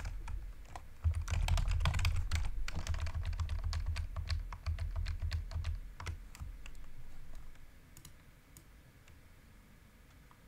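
Typing on a computer keyboard: a fast run of keystrokes, densest in the first few seconds, then slower scattered key presses that stop about eight seconds in.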